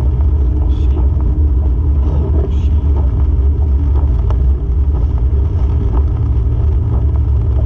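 Steady low rumble of a car's engine and tyres on a wet road, heard from inside the car in rain, with a few brief swishes of the windshield wipers.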